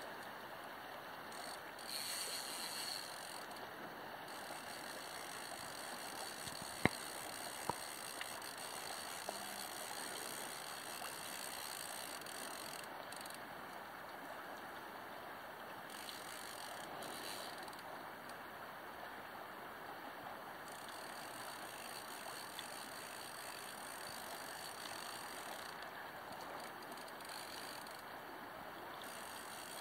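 River water running steadily over a shallow, rippling stretch, an even rushing hiss, with a few sharp clicks about 7 to 9 seconds in.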